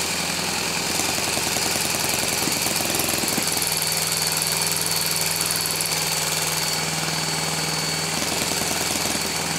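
Hand-held electric starter motor whining steadily as it spins a small model four-stroke glow engine over with a rapid chuffing, the engine turning on the starter without catching.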